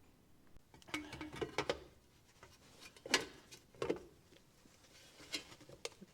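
A handful of light knocks and clinks from small car parts and hardware being handled on a workbench, in a few scattered taps with short pauses between them.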